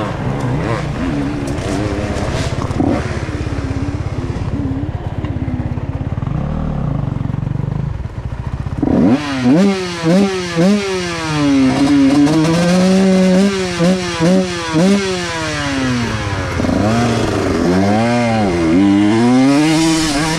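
125 cc two-stroke dirt bike engine under way. For about the first nine seconds it runs at low, fairly even revs. Then it is revved hard, the pitch rising and falling again and again, with short drops as the throttle is rolled off.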